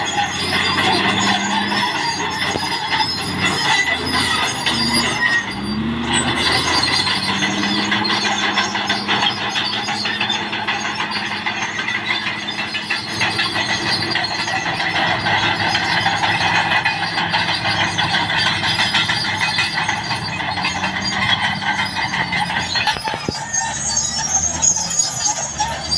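Caterpillar D6R XL crawler dozer working: its diesel engine runs under load while the steel tracks squeal and clatter. The engine pitch dips and then rises about five to six seconds in.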